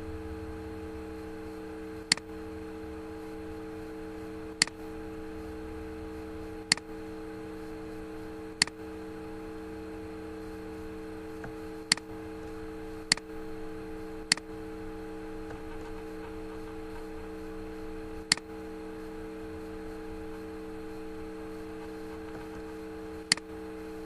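Computer mouse clicks, nine sharp single clicks spaced a second to a few seconds apart, over a steady electrical hum.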